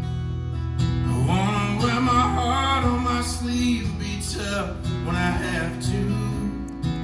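Solo acoustic guitar strummed steadily, with a man singing a line over it from about a second in until about six seconds.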